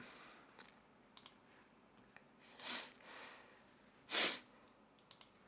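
Two breaths close to the microphone, a short one about two and a half seconds in and a louder one near four seconds, with a few faint clicks between them.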